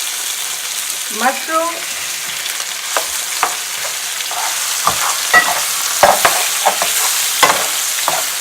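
Garlic, tomatoes and mushrooms sizzling in hot oil in a frying pan, a steady hiss, while a utensil knocks and scrapes against the pan several times as they are stirred.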